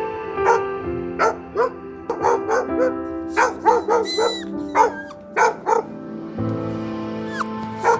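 A dog yipping and barking in short, repeated barks, about a dozen spread irregularly, with a brief falling whine about four seconds in. Background music with long held notes plays under it.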